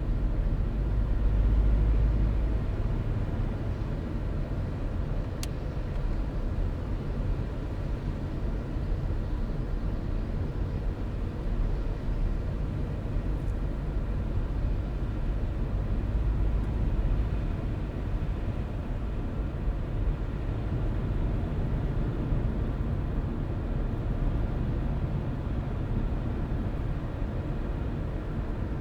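Car driving on a road: a steady low rumble of engine and tyre noise that swells slightly about a second in and again around the middle. A single faint tick about five seconds in.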